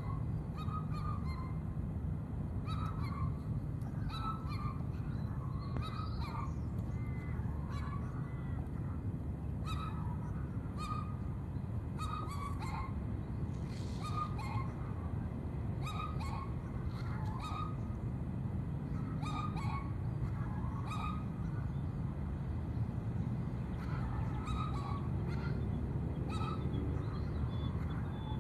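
Birds calling: short honking calls in small groups every second or two, over a steady low rumble.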